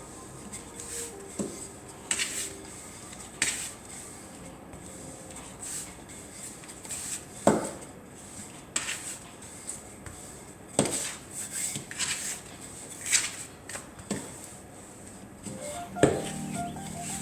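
Irregular knocks and clacks of a rolling pin against the worktop as dough is rolled out, about a dozen over the stretch, the loudest a little past the middle.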